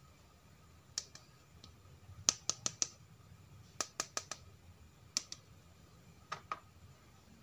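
Hard plastic toy animal figures clicking and knocking against one another and a plastic tub as they are picked up and handled: scattered sharp clicks, some in quick runs of three or four.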